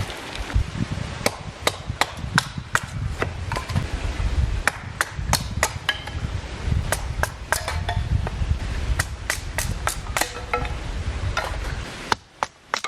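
A run of sharp, irregular knocks and taps, like chopping or hammering, over a low rumble.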